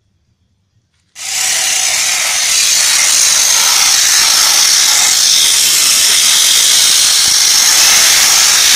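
High-pressure washer jet spraying onto an engine cylinder head: a loud, steady hiss that cuts in suddenly about a second in.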